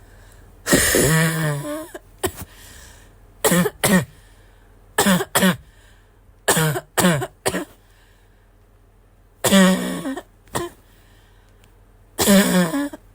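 Wheezy, barking cough in repeated fits: short coughs in twos and threes, with three longer harsh coughs that carry a pitched, wheezing edge, about a second in, past the middle and near the end.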